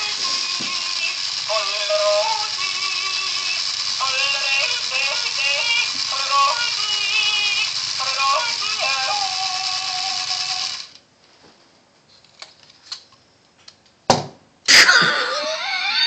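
Novelty yodelling lederhosen toy playing a tinny yodel song through its small speaker, with a rattle from its moving figure. It stops about eleven seconds in, a few light clicks and two knocks follow as it is handled, and the yodelling starts up again near the end.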